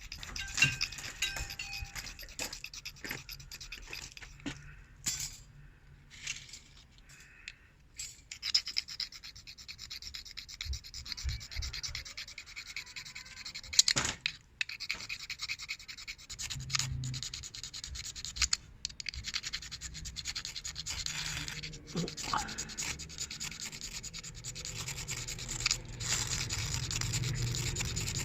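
Ferrocerium fire-starter rod being scraped repeatedly with its striker to throw sparks. It makes a run of rasping scrapes, separate strokes at first and then faster and almost continuous in the second half, with a few sharp clicks.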